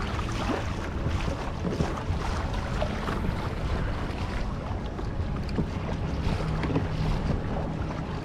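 Wind blowing on the microphone, with water lapping and splashing in small irregular bursts.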